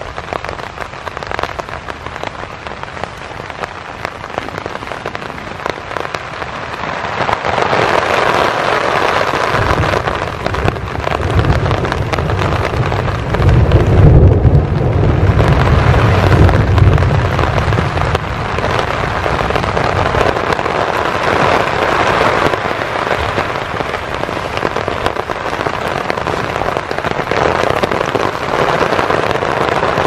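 Heavy thunderstorm rain falling on a tarp shelter, getting heavier after about seven seconds. A long low rumble of thunder rolls through the middle and is the loudest part.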